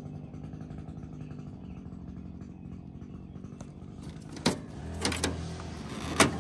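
Steady low hum like a running vehicle engine in the background, with a few sharp clicks or knocks starting about two-thirds of the way in, the loudest near the end.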